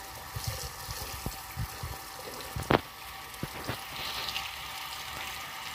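Hands swishing soaked wheat grain around in a plastic tub of water, with wet sloshing and a few short knocks against the tub; the loudest is a sharp knock about two and a half seconds in.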